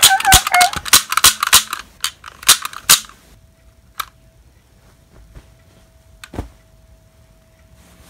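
Toy cap-gun revolver clicking as its trigger is worked: a quick run of sharp clicks, about four a second, for some three seconds, then two single clicks about four and six seconds in.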